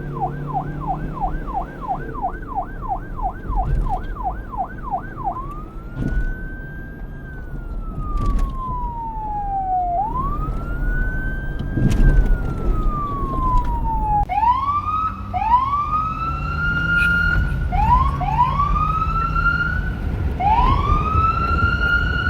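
Electronic police car siren cycling through its modes: a fast yelp of about three sweeps a second, then a slow wail rising and falling twice, then a run of short rising whoops that climb and hold. A low rumble runs underneath.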